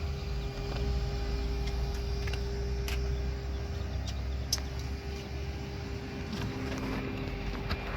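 A steady low engine hum with a constant tone above it and a few light clicks.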